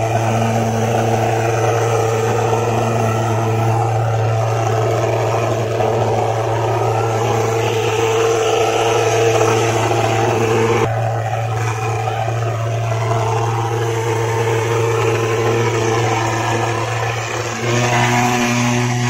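Portable pulse-jet thermal fogging machine running continuously as it sprays insecticide fog, a loud, steady low-pitched drone, its pitch shifting slightly upward near the end.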